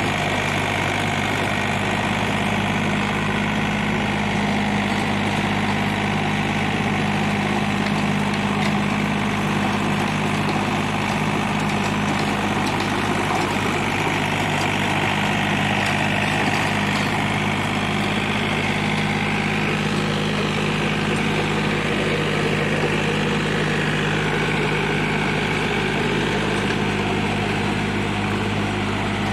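A 36 hp John Deere mini tractor's diesel engine running steadily under load, driving a 7-foot Maschio rotavator that churns through dry soil.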